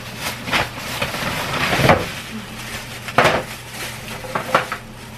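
Plastic grocery bag rustling and crinkling as items are pulled out of it and set down on a kitchen counter, with about four sharp knocks.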